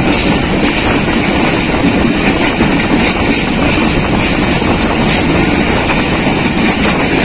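Steady running noise of a passenger train heard from on board as it gathers speed: wheels rolling on the track, with rattle and rush of air.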